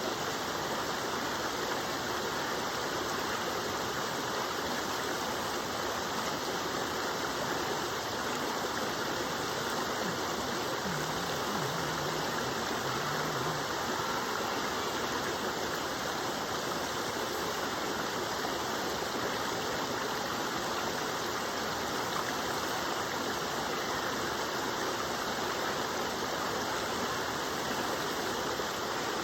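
Waterfall: falling, rushing water making a steady, even noise that does not change.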